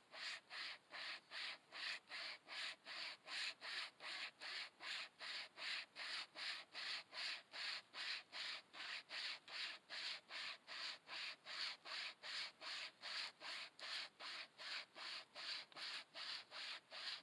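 Wire survival saw rasping back and forth through a half-rotten tree trunk, a steady rhythm of about two and a half strokes a second.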